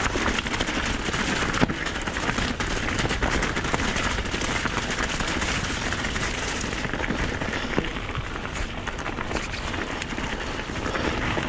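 Mountain bike riding fast down a wet, rocky trail: tyres crunching and splashing over loose stones and puddles, the bike rattling, in a steady rush of noise full of small clicks, with a sharper knock now and then.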